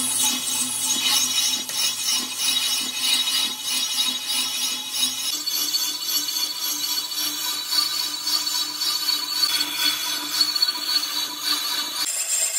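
Metalworking machinery running with a steady, mostly high-pitched noise and a few held tones. The sound changes suddenly about five seconds in and again near the end.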